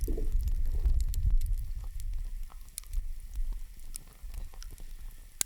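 Hinoki wood offcuts and shavings burning, with scattered crackles and small pops over a low rumble; a sharper pop near the end.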